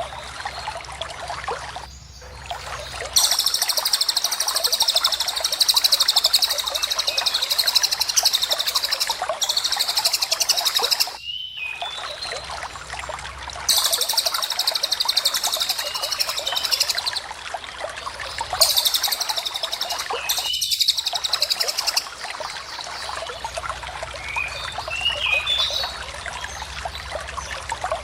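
Recorded lovebird and cililin song for training caged songbirds: long, very rapid trilling runs of several seconds each, five in all, with short chirps in the gaps, over a steady rush of flowing water.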